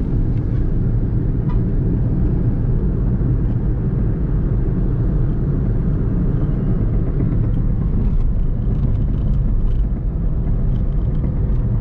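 Steady low rumble of a car driving along, engine and road noise unbroken.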